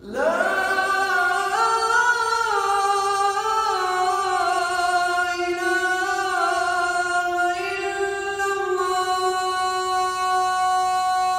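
A man chanting the adhan, the Islamic call to prayer, into a microphone: one long, unbroken, ornamented phrase whose pitch steps slowly up and down.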